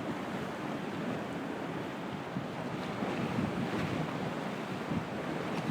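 Storm wind and rough, choppy river water, waves of about two feet sloshing and breaking in a marina, with the wind buffeting the phone's microphone.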